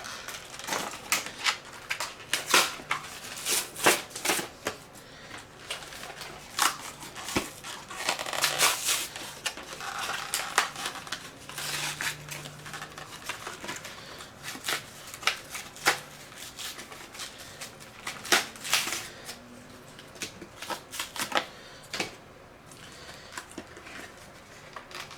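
Flashlight packaging being opened and handled by hand: irregular clicks, taps and crinkling rustles.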